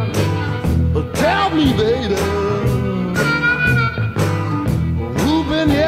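Solo acoustic blues guitar playing a repeating riff with a steady beat of about two strokes a second, with a bending melodic line over it.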